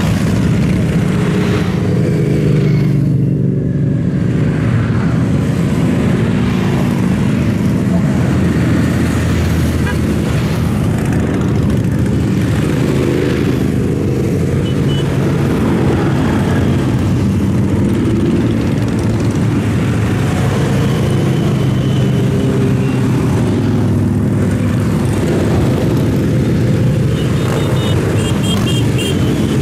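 Heavy road traffic of motorcycles riding past, many engines running at once in a steady, unbroken drone.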